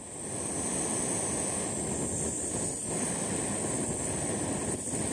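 Canister gas camping stove burning under a metal mug: a steady, even roaring hiss of the burner.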